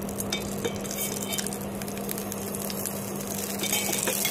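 Cooking oil heating in a metal pan, crackling and spitting with small clicks as it meets leftover water droplets, the crackle thickening near the end. A steady low hum runs underneath.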